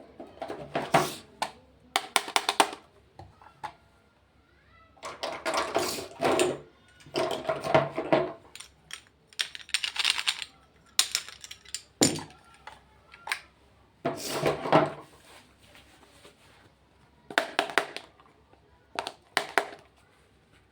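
Makeup packaging being handled and unboxed: repeated short bursts of crinkling, tapping and clicking of plastic and cardboard, with brief pauses between them.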